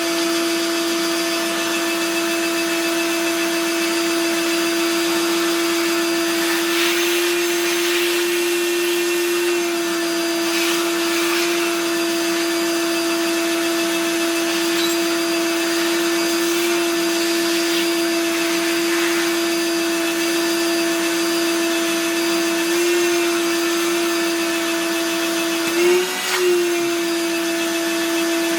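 Vacuum cleaner running steadily, its motor giving a constant whine over a rushing hiss; the whine wavers briefly in pitch near the end.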